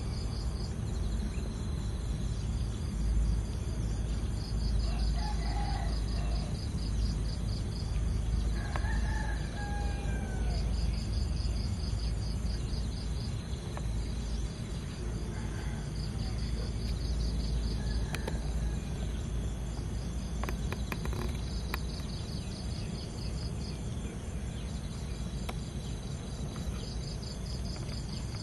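Outdoor ambience: a high, pulsing insect trill that comes in stretches of a few seconds, repeating about every six seconds, over a steady low rumble, with a few short, falling distant bird calls.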